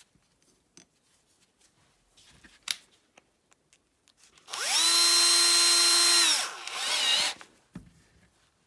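Handheld power drill with a small bit: it spins up to a steady high whine, runs for about two seconds and winds down, then gives a shorter, wavering second burst. A sharp click of handling comes before it, and a knock follows as it is set down.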